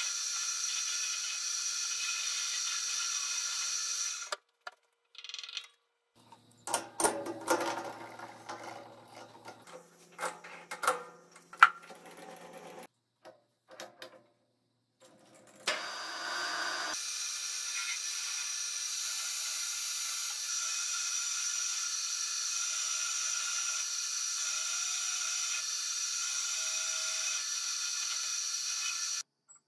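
Metal lathe running and cutting a steel shaft with a carbide insert tool, a steady mechanical whir. After about four seconds it stops, giving way to scattered sharp clacks and knocks of hands working the lathe's carriage levers; from about sixteen seconds the lathe runs steadily again.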